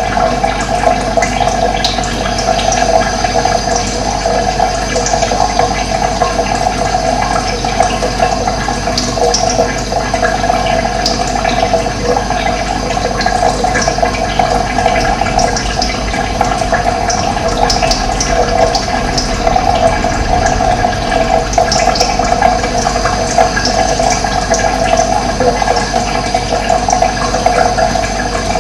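Running water rushing steadily, with short high bird chirps now and then.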